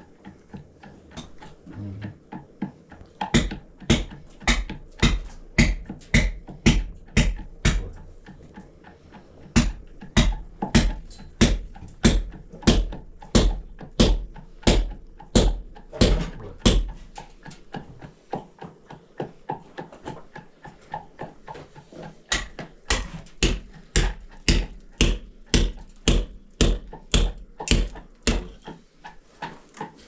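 Wooden pestle pounding in a tall wooden mortar: a steady run of thuds about two a second. The strokes pause briefly about a third of the way in, go softer for a few seconds past the middle, then come hard again and stop near the end.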